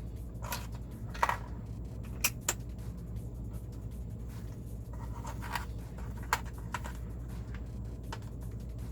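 Plastic LEGO pieces being handled and pressed together: a handful of scattered sharp clicks with light scratching, the loudest about a second in.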